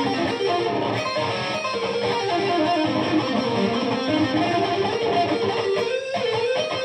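Electric guitar played lead: a run of picked notes with string bends and vibrato, one note bent slowly upward and wavered near the end.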